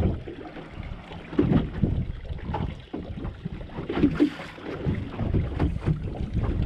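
Wind buffeting the microphone on an open boat, with irregular knocks and clatter from handling on deck, a sharper cluster about four seconds in.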